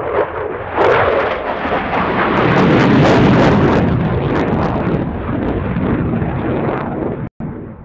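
Belgian Air Force F-16's Pratt & Whitney F100 jet engine at high power as the fighter climbs overhead. A loud, crackling rumble swells within the first second, peaks about three seconds in, eases off gradually, and cuts out for an instant near the end.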